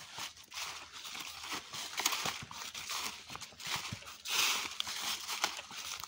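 Footsteps walking through a thick layer of dry fallen leaves: an uneven rustling crunch with each step, briefly louder a little after four seconds in.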